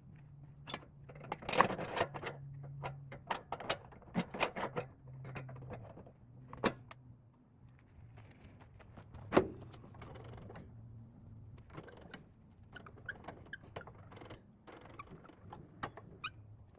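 Wooden boards knocking and clattering as they are handled and set in place, with irregular sharp knocks, the loudest about a second and a half in and again about nine seconds in, over a low steady hum.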